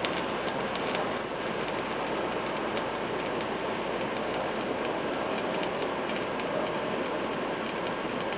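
Electric welding arc crackling steadily, a dense sizzle sprinkled with many small pops.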